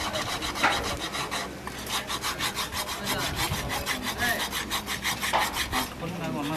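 A cobbler's hand tool scraping in quick, even strokes, several a second, starting about two seconds in.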